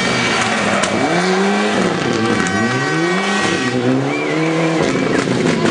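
Rally car engine accelerating hard past the listener, its pitch climbing and dropping back about four times as it shifts up through the gears while powering out of a corner.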